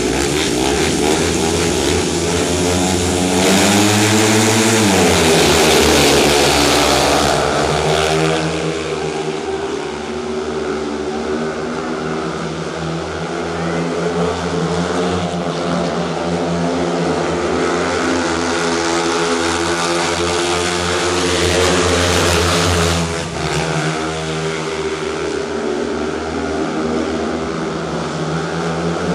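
Speedway motorcycles' 500 cc single-cylinder methanol engines at full throttle in a race. The pitch climbs as they accelerate off the start about three to five seconds in, then rises and falls as they go through the bends and straights.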